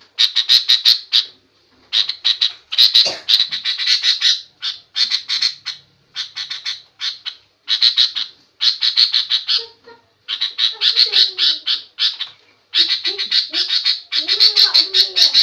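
Sooty-headed bulbul (kutilang) chattering harshly in rapid strings of sharp notes, in bursts of about a second with short gaps between. This is the agitated, noisy call used to lure and provoke other birds into answering.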